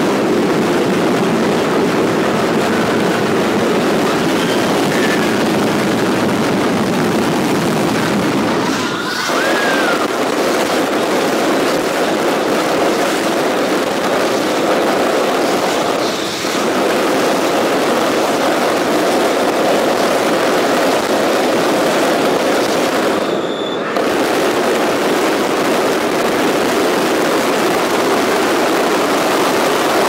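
Mascletà firecracker barrage: a loud, dense, unbroken rattle of firecrackers going off too fast to count, breaking off briefly three times.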